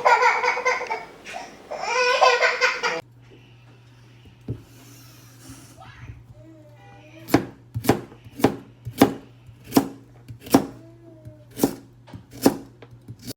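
A baby laughing and babbling loudly, cut off abruptly about three seconds in. A steady low hum and, from about seven seconds in, a run of about ten sharp knocks, roughly one every 0.6 seconds, follow.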